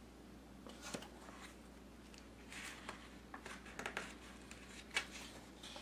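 Paper pages of a book being handled and turned: faint, scattered rustles and taps, with the sharpest snaps about four and five seconds in.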